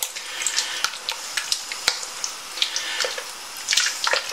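A spoon stirring a thick bean stew in a stainless steel stockpot: wet squelching and slopping, with irregular small clicks of the spoon against the pot.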